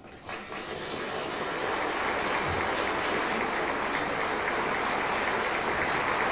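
Audience applauding: the clapping starts as the music stops, builds over about a second and then holds steady.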